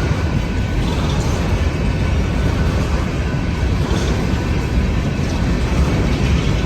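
Passing train at a railroad crossing, its sound slowed down with the slow-motion footage into a deep, steady rumble.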